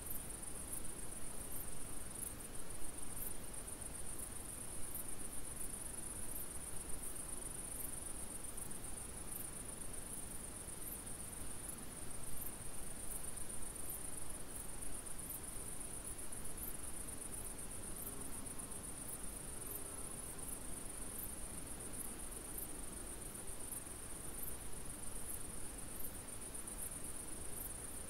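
Insects, crickets by the sound, chirping: a steady high-pitched trill with a short pulse repeating about once a second, over faint outdoor hiss.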